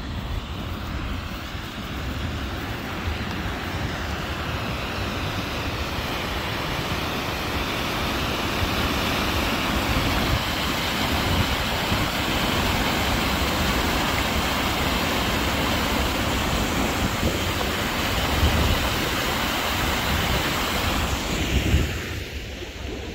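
Floodwater pouring over a river weir: a steady rush of white water that grows louder and then falls away near the end, with wind buffeting the microphone underneath.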